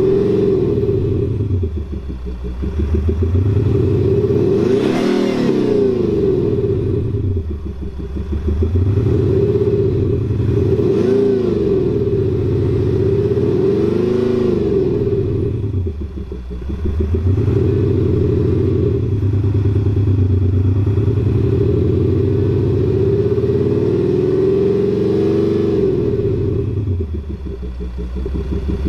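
Range Rover Sport diesel revved repeatedly while standing, its exhaust note boosted by a MAXHAUST active exhaust sound-booster speaker. The note climbs and falls about four times, the last rev held for several seconds.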